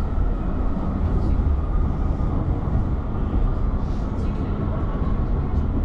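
Bergen Light Rail tram running, heard from inside the passenger car: a steady, deep running noise of wheels on rails and traction motors.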